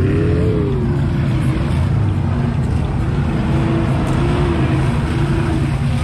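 Off-road 4x4 truck or jeep engine running under load, its revs rising and falling several times over a steady low rumble.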